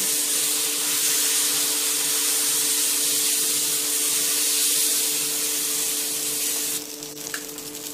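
Dosa batter sizzling on a hot tawa as it is spread in circles with the bottom of a bowl, a loud, even hiss that drops off sharply near the end. A steady low hum runs underneath.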